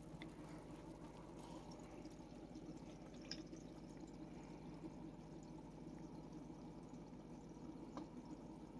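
Faint, steady bubbling and trickling of aquarium water from the tank's aeration, over a low hum, with a couple of faint ticks.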